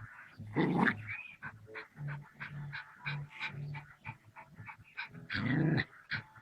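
A dog panting rapidly, with two louder vocal outbursts, one about half a second in and one near the end.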